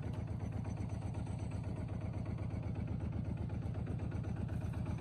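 An engine running steadily at a low, even throb with no change in speed.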